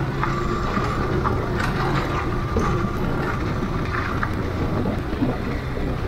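Motorcycle running steadily over a rocky forest road, with engine and road rumble and wind noise on the rider's microphone.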